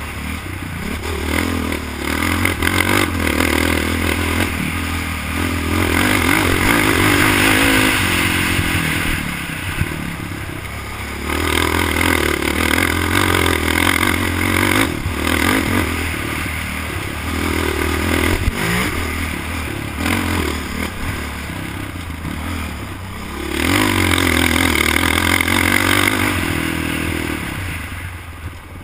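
ATV (quad bike) engine revving hard on an onboard ride over a rough dirt track, rising and easing in long pulls as the throttle opens and closes. Rattling knocks from the machine bouncing over bumps.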